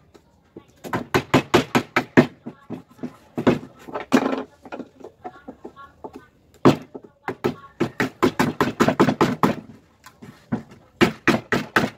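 Hammer blows on wood, in quick runs of about five strikes a second with short pauses between runs, driving a glued wooden support block into place in a wooden stool frame.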